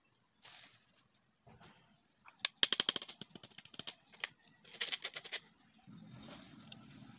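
A metal spoon scraping and rattling against the mesh of a plastic sieve to push starch through, in two short runs of rapid clicking, the first the louder.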